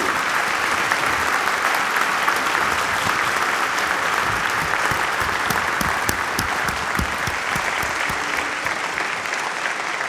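A large audience applauding steadily, a dense wash of many hands clapping that eases slightly near the end.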